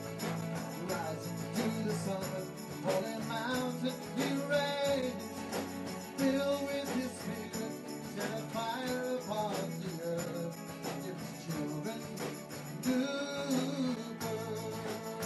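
Background music with a melody over a steady beat.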